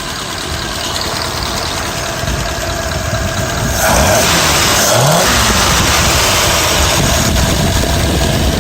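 A 1949 Mercury flathead V8 running at idle. It gets louder about four seconds in, and its pitch rises briefly about a second later.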